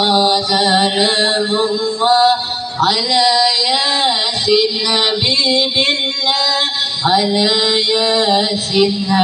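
Amplified devotional singing (sholawat) by the kompang group: one high voice holding long, wavering, melismatic phrases that glide up and down in pitch.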